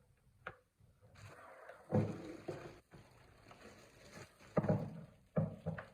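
Handling noise: a rustle and several hard knocks and thuds, one about two seconds in and three more close together near the end, as of objects being moved and set down on a table.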